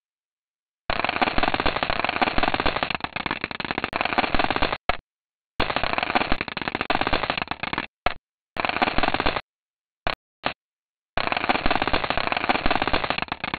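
Icy dust particles from Comet 9P/Tempel's coma pelting NASA's Stardust spacecraft, played back as sound: a dense, crackling hail of rapid clicks. It comes in several stretches that stop and start abruptly, with silent gaps between them, two brief blips around the tenth second and a quieter patch around the fourth second.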